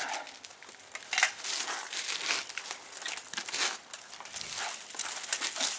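Rustling and scraping of a quilted padded gambeson and armour being pulled on and handled, with a few sharper knocks.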